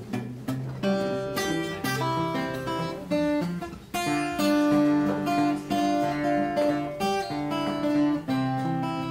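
Acoustic guitar playing an instrumental passage, picked notes and chords ringing one after another.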